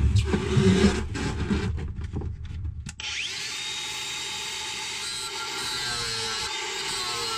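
Knocks as a Makita angle grinder with a cutoff wheel is set against a heavily corroded seacock. About three seconds in, the grinder spins up with a rising whine and runs steadily, cutting with a high hiss.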